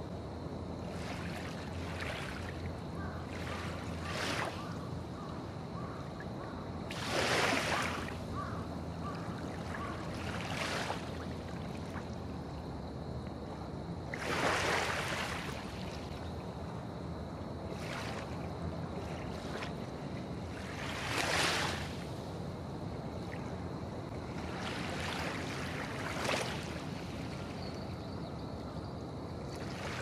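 Gentle harbour waves lapping in a sheltered inlet, small splashes with a louder slap about every seven seconds, over a steady low hum.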